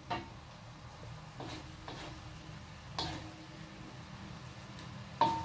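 Metal spatula knocking and scraping against a steel wok while stirring, a few separate taps that each ring briefly, the loudest near the end, over a low steady hum.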